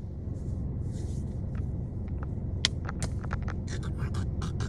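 Steady low rumble of a car heard from inside the cabin, with scattered short clicks and ticks in the second half.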